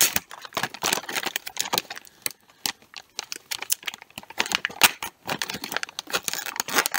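Plastic popcorn bag being torn open and handled, a dense run of irregular crinkles and crackles.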